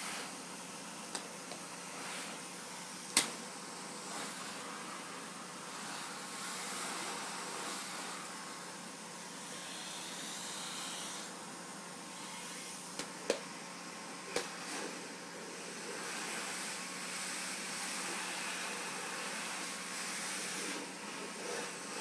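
Canister vacuum cleaner running, a steady hum under a hiss of air through the hose that swells and fades as the floor nozzle is moved about. A few sharp knocks of the nozzle against the floor stand out, the loudest about three seconds in.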